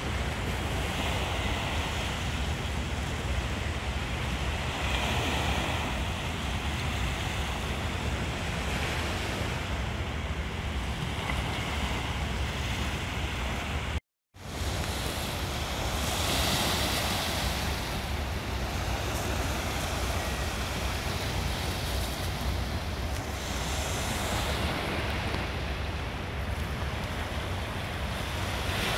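Sea waves washing against a rocky shore in slow rising and falling surges, with wind rumbling on the microphone. The sound drops out for a moment about halfway through.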